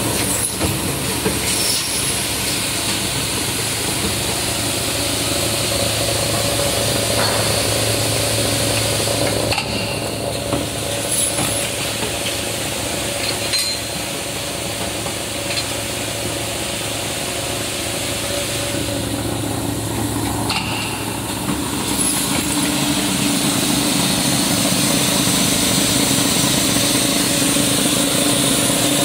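Automatic coil nail welding machine (Uniwin AJD 100) running while welding and coiling nails: a steady mechanical hum with a hiss over it, its pitch shifting to a higher hum about two-thirds of the way through.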